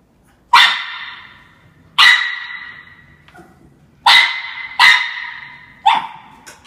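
Young Norfolk terrier barking at a cat: five loud, sharp barks a second or two apart, the fourth coming quickly after the third, each trailing off in the echo of a stairwell.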